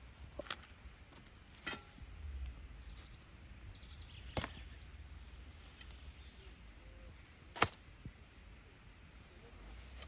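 Five sharp clicks or knocks at irregular intervals, the loudest about seven and a half seconds in, over a steady low rumble.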